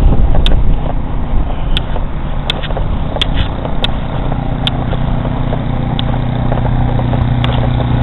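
Vehicle engine running steadily, with a low hum over rumbling road noise and scattered sharp clicks.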